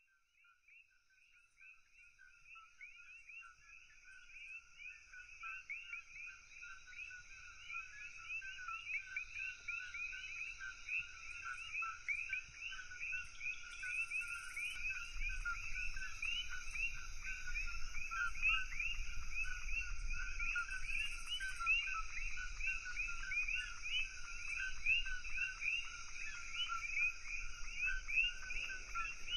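A chorus of many common coquí frogs, each calling its two-note "co-kee", a lower note then a higher one, over and over, with a steady high hiss behind. It fades in over the first several seconds.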